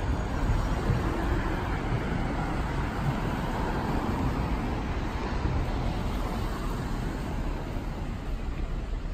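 Road traffic on a city street: cars driving past, a steady noise of engines and tyres that swells slightly around the middle.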